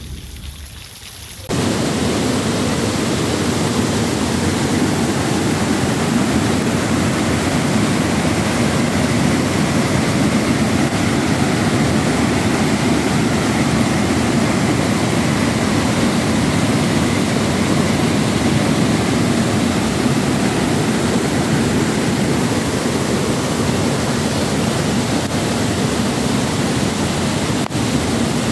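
Rain falling, cut off about a second and a half in by the loud, steady rush of a river in flood, its floodwater churning fast through the channel.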